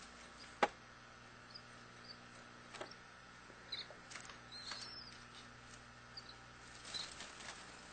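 Young canaries giving faint, short, high cheeps scattered through, one a small rising-and-falling call near the middle. There are a few sharp clicks, the loudest about half a second in.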